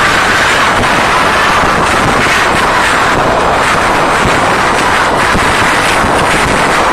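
Concert crowd screaming without a break, so loud that it overloads a phone's microphone into steady distorted noise, strongest in the high scream range.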